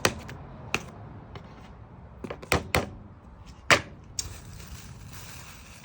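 A handful of sharp, irregular knocks and clicks of things being handled, then a soft steady hiss for about the last second and a half.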